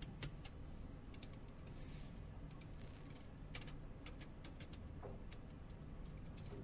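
Faint, irregular small clicks and light crackling of thin plastic protective film being peeled off a phone's front cover with tweezers, over a low steady hum.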